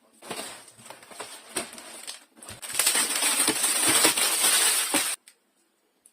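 Handling noise of an unboxing: a dense rustle dotted with small clicks and clinks. It grows loud about halfway through, then stops abruptly about a second before the end.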